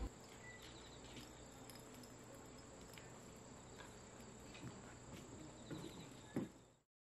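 Crickets trilling faintly and steadily on one high note over quiet outdoor ambience, with a few light clicks and a soft knock near the end before the sound cuts off.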